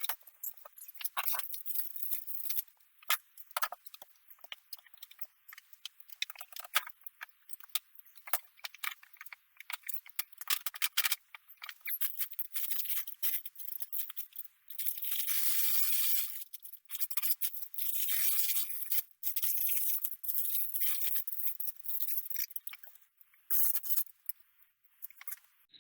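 Cat litter granules being scratched and shifted in a litter box: a steady run of small irregular clicks and scrapes, with several longer rasping stretches in the second half.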